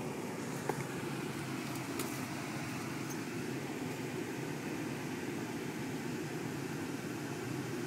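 Steady hum of engine and road noise inside a moving car's cabin, with two faint clicks near the start.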